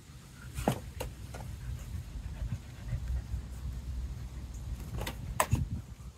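Australian Shepherd dogs playing up close: panting and rustling close by, with a few short sharp sounds about a second in and again near the end.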